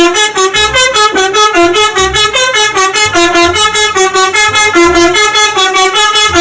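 Telolet bus horn, a multi-tone musical horn, playing a fast, continuous tune of short notes that change pitch several times a second.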